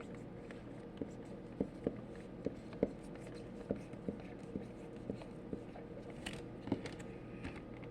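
Pen or marker writing on paper: light scratching with irregular small taps, a few each second, over a low steady room hum.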